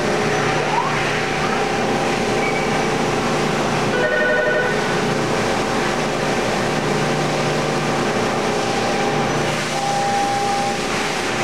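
Tsugami TMA8 CNC mill-turn center running a milling cycle: a steady mechanical whir of the spindles and coolant with a steady tone over it. A brief rapid pulsing about four seconds in, and a louder tone for about a second near the end.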